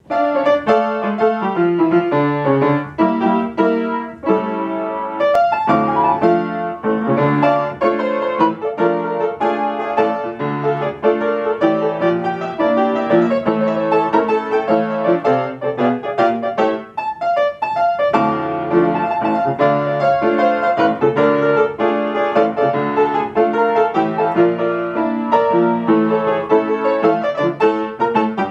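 Upright piano played solo: a continuous piece of chords over a moving bass line, with a brief lull about two-thirds of the way through.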